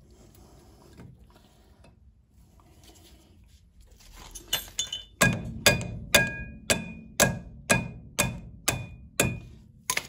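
Hammer blows on a metal drift, knocking a new rear brake pad into its caliper carrier bracket: a few light taps, then about nine sharp, ringing metal-on-metal strikes, about two a second.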